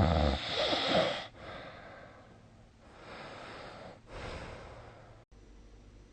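A sleeping person's loud snore, lasting about a second, then three quieter breaths.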